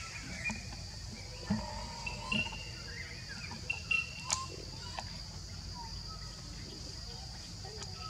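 A steady high insect drone with scattered short bird-like chirps. A few sharp clicks stand out about one and a half, two and a half and four seconds in.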